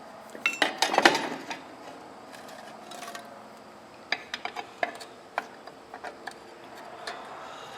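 Metal parts of a drum brake being handled and fitted back together: a quick run of sharp metallic clicks and clanks in the first second or so, then scattered single clicks.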